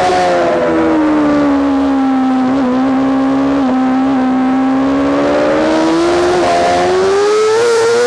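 Yamaha R6's inline-four engine heard on board at track speed. The revs fall over the first couple of seconds and hold low for a few seconds, then climb steadily as the bike accelerates hard, over a steady rushing hiss.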